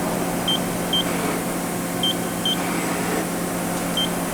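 Short high electronic beeps, mostly in pairs about half a second apart, from a Mori Seiki ZT-1500Y CNC turning center's control while the X axis is jogged, over the machine's steady low hum.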